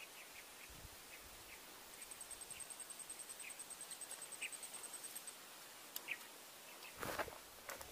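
Faint wildlife chirping: small scattered chirps, and from about two seconds in a fast, high ticking trill for about three seconds. A few rustles near the end.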